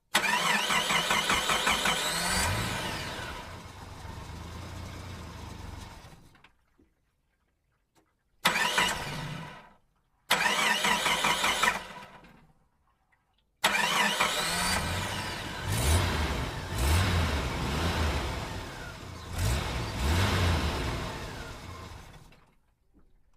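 Car engine start attempts: the starter cranks in four separate tries with pauses between. On the first and the last try the engine catches and revs up in short rises before fading away.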